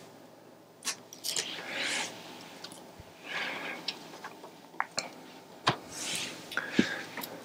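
Plastic cable ties being cut off: about half a dozen sharp snips at irregular intervals, with rustling of handling between them.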